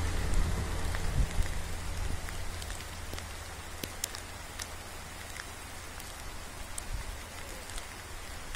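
Steady rain falling: an even hiss with scattered sharp ticks of drops. A low rumble eases after the first second or so.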